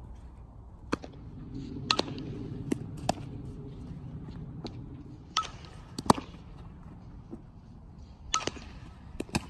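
A softball smacking into a leather fielding glove again and again: about eight sharp pops at irregular intervals.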